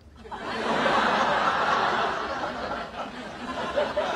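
Sitcom studio audience laughing at a punchline, swelling in about half a second in and then slowly tapering off.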